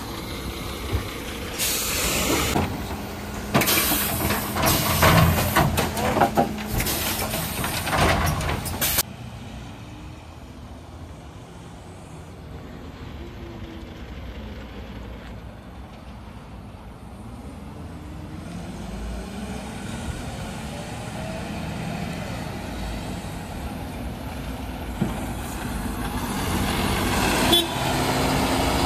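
A Mercedes Econic refuse truck runs with loud, repeated air hisses, typical of its air brakes, over the first several seconds. Then it drives off more quietly, the engine note rising through the gears, and grows louder again as the truck comes close near the end.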